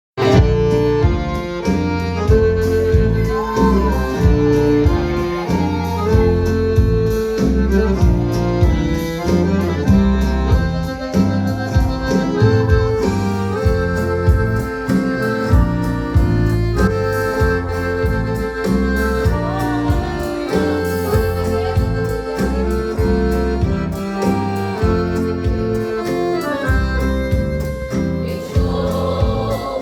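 Instrumental introduction to a Pentecostal gospel worship medley: a band plays sustained chords over a deep, pulsing bass and a steady drum beat. Voices begin to come in near the end.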